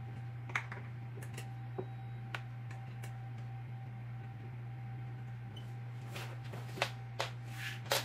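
Scattered light clicks and taps from hard plastic baby-swing parts being handled, with a few louder ones near the end, over a steady low hum.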